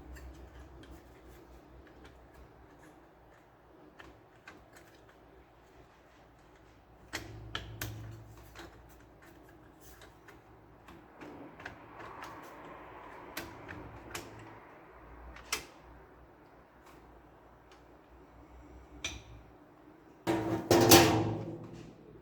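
Scattered small clicks and knocks as parts of an HP LaserJet P1102 laser printer are handled during repair, with a louder scraping rattle lasting about a second and a half near the end.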